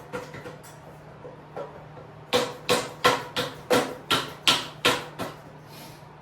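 Hammer striking metal: a few light taps, then a quick run of about eight ringing blows, two or three a second, starting a little over two seconds in, knocking at a stuck part of a mini bike's front end.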